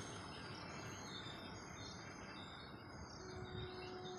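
Birds chirping over a faint low rumble from the departing freight train as it draws away.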